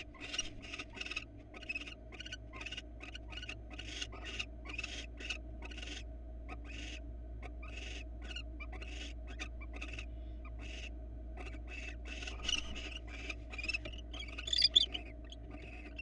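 Barn owls in the nest box giving a rapid series of short, hissy calls, about three a second, with a louder, higher burst near the end. A steady low hum runs underneath.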